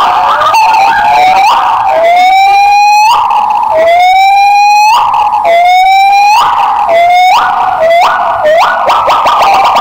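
Gibbons calling: a series of loud whoops that each slide upward in pitch, the longest in the middle and shorter, quicker ones near the end, with other calls overlapping.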